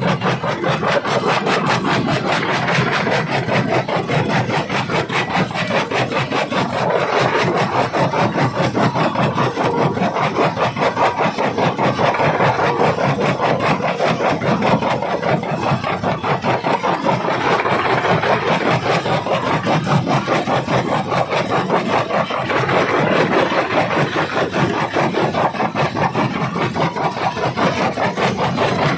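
Jaw rock crusher grinding and crunching stone, a steady, rapid, even rhythm of gritty strokes as the jaw works back and forth.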